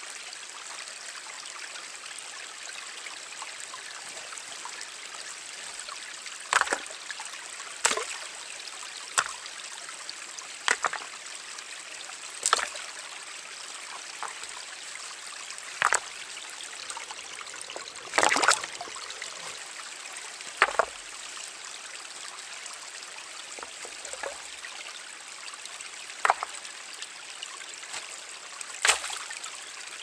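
Small forest stream trickling and babbling steadily. From about six seconds in, this is overlaid by about ten short, sharp knocks and clinks from the hobo stove and camp gear being handled, including a longer rattle about 18 seconds in.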